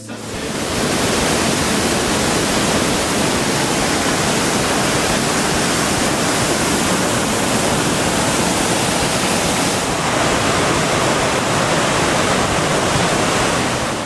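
A large waterfall heard close up at its base: a loud, steady rush of water falling and churning in its plunge pool.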